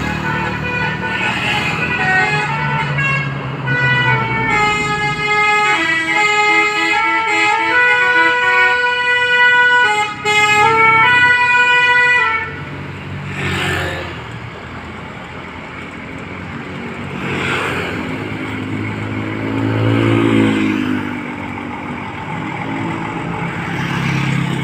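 Basuri-type telolet musical air horn playing a multi-note tune that steps up and down in pitch, then cutting off abruptly about halfway through. After that comes vehicle engine and traffic noise that swells a couple of times.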